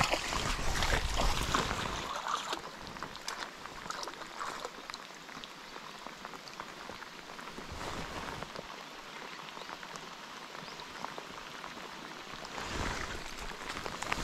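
Heavy rain falling on the water and on a rain jacket, many small drop hits ticking over a steady hiss. A louder low rumble and a splash come in the first couple of seconds, and the rumble returns near the end.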